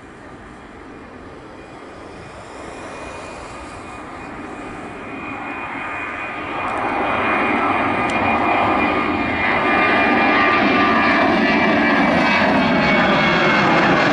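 Boeing 737-800's CFM56-7B turbofan engines at takeoff power as the airliner climbs out. The jet noise swells steadily louder as the plane comes closer, rising most sharply about halfway through, with a thin high whine running through it.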